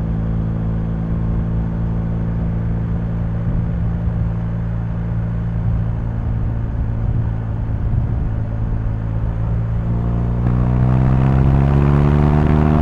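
BMW R1250GS's boxer-twin engine running at a steady speed while riding, then accelerating about ten seconds in, its pitch rising to the end.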